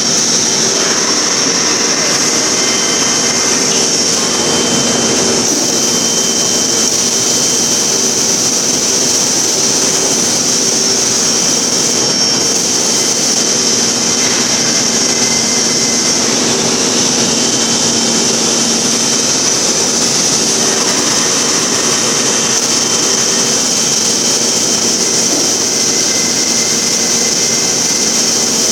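Particleboard production line machinery running: a loud, steady industrial drone with a strong high hiss and several constant hum tones underneath, unchanging throughout.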